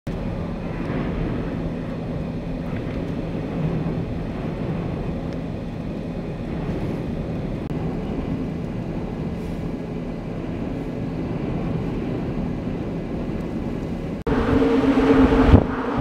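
Strong wind rushing steadily past the microphone during a dust storm, over a low steady vehicle hum. About fourteen seconds in it cuts to a louder, gustier stretch of wind.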